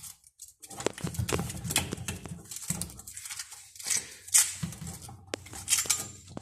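Irregular clicks, taps and scraping from handling work on sink pipework.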